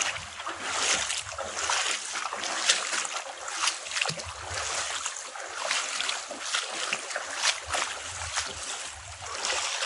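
Water of a canyon stream running and splashing, with an uneven crackle and patches of low wind rumble on the microphone.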